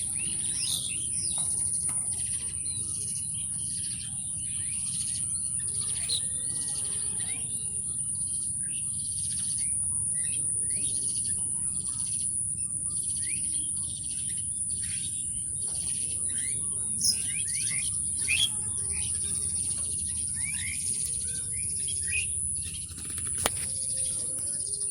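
Many small birds chirping and twittering in quick, overlapping short calls, over a steady high-pitched drone and a low background rumble.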